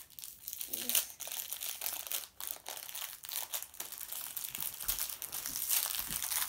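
A small shiny foil wrapper crinkling in irregular crackles as it is peeled open by hand.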